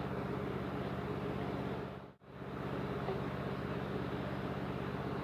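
Steady low motor hum, which drops out for a moment about two seconds in.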